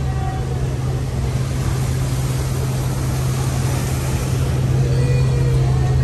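Lake paddle steamer under way: a steady low hum from its paddle-wheel drive under an even rush of wind and water on the open deck.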